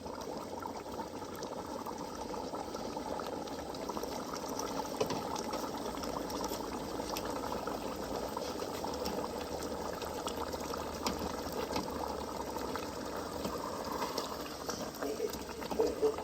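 A pot of ukazi and egusi soup boiling, bubbling and crackling steadily, with a few louder pops near the end.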